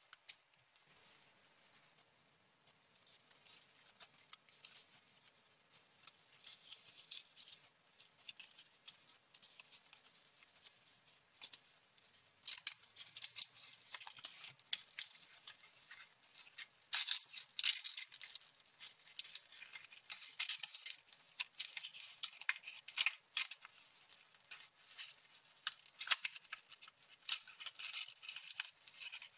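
Small sheets of coloured paper being handled, folded and creased by hand: crisp rustling and crinkling with sharp little crackles. Sparse and faint at first, the crackling becomes louder and busier about twelve seconds in.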